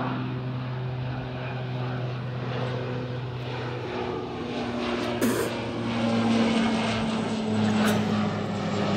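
A Flybe Dash 8-400 (Q400) turboprop climbing out after takeoff, its Pratt & Whitney PW150 engines and propellers giving a steady droning hum. It gets louder about halfway through as it passes overhead.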